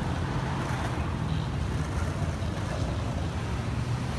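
Skateboard wheels rolling over asphalt, a steady low rumble, mixed with the engines of city traffic.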